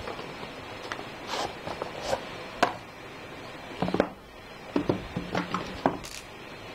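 Cardboard packaging being handled: the printed sleeve sliding off the inner brown box, then the box set down on a wooden table and picked up again. It comes as a series of short scrapes and knocks, the sharpest about two and a half and four seconds in.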